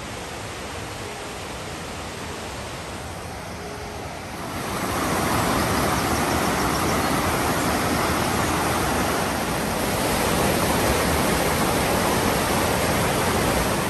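Mountain stream rushing over boulders in a whitewater cascade, a steady rush of water that grows louder about four and a half seconds in.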